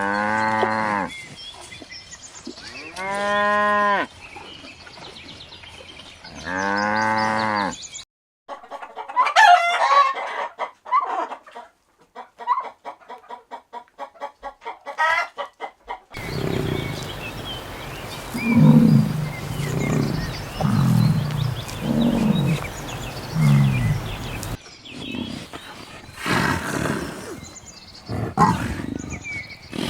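A string of different animal calls edited one after another. First come three long pitched calls that rise and fall, about three seconds apart. Then a stretch of quick, rapidly repeated short calls follows, and then a run of about six low calls, roughly one a second, with more calls near the end.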